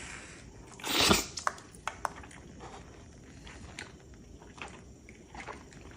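A person eating close to the microphone: one loud bite about a second in, then scattered small clicks of chewing.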